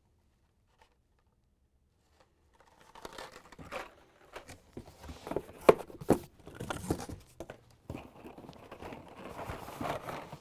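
Plastic blister-carded toy cars and a cardboard shipping case being rummaged through by hand: crinkling and rustling with a few sharp clicks and knocks, loudest a little after halfway. Before that, the first couple of seconds are nearly silent.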